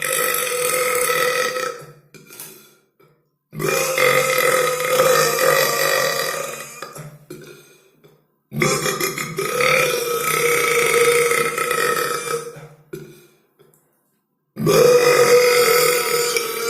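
A person's long, drawn-out loud belches, one after another. One trails off about two seconds in, two more each last about four seconds, and another starts near the end.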